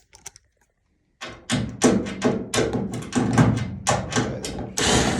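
Rapid, irregular knocks and clicks of a tool working a screw out of a Samsung dryer's front cover, starting about a second in.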